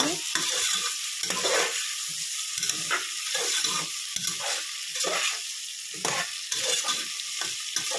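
Sliced onions and tomato frying in oil in a pressure cooker with a steady sizzle, while a slotted spatula stirs them with repeated scraping strokes against the pan.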